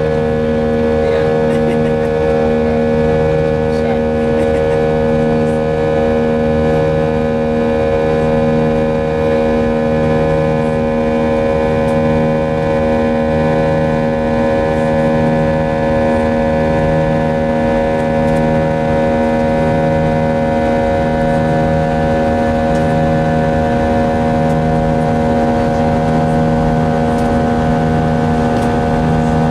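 IAE V2500 turbofan engines of an Airbus A320 running steadily during the climb, heard from inside the cabin as a loud drone of several steady tones. The low notes swell and fade in a slow, regular throb, about once every two seconds.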